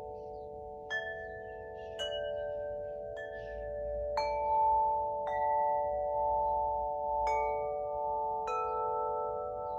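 Spring wind chime (the wood-element chime) struck about seven times at uneven intervals, each strike setting its metal tones ringing; the tones hang on and overlap into a sustained chord.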